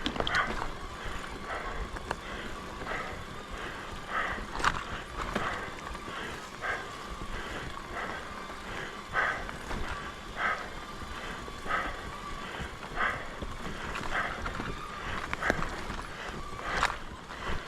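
Mountain bike ridden along a dirt forest trail: rolling tyre and bike noise with a regular sound about once a second, over a faint steady whine and a few sharp clicks.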